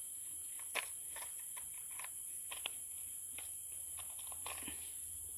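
Steady high-pitched insect drone with scattered small clicks and short chirps.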